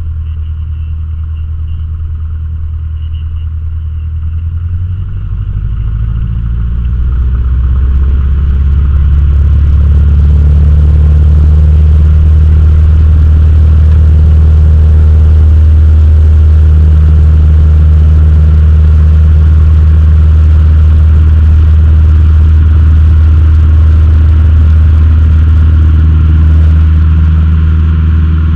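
Cessna 152's four-cylinder Lycoming engine and propeller heard from inside the cockpit, running at lower power at first and then throttled up to full power over several seconds starting about five seconds in, then holding steady for the takeoff roll.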